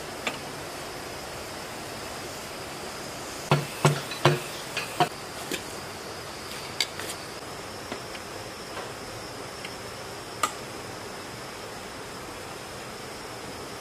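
Metal parts of a dismantled diesel engine knocking and clinking as they are handled by hand. A quick run of four or five sharp knocks comes a few seconds in, followed by a few lighter clicks. A faint steady high-pitched tone runs underneath.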